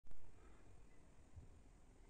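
Near silence: faint low room rumble and hiss, after one brief thump at the very start.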